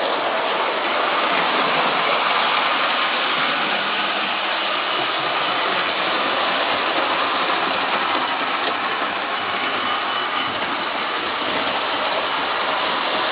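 HO scale model train running on the layout's track: a steady mechanical noise from its motor and wheels.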